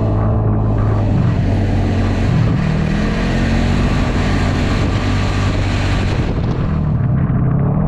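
Yamaha snowmobile engine running steadily under throttle while the machine is ridden. A high hiss over the engine drops away about six seconds in.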